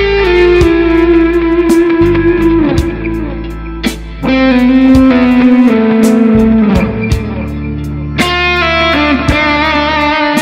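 Electric guitar playing a slow A minor pentatonic blues lead: long held notes that are bent and slide down in pitch, over a backing rhythm with a steady beat and low bass notes.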